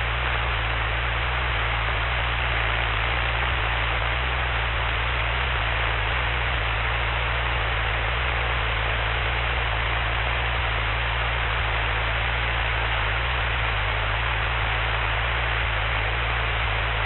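Steady hiss with a low steady hum beneath it, the idle noise of a Cessna 172's headset intercom recording in flight while no one is talking.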